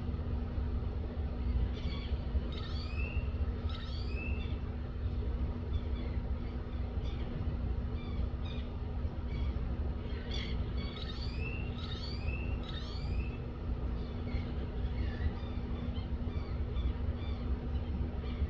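Birds calling in two bursts of quick, repeated sweeping chirps, about two seconds in and again around ten to thirteen seconds in, over a steady low rumble with a constant hum.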